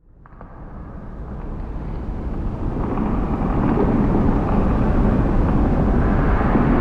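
A dark, rumbling ambient music drone fading in from silence over the first three seconds, then holding steady.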